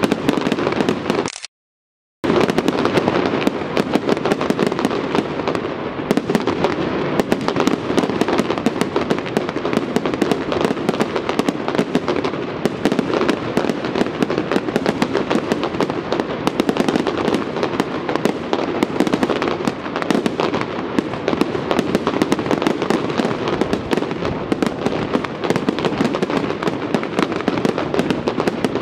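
Fireworks display going off in a dense, continuous barrage of rapid pops and crackles, with a brief break in the sound a second and a half in.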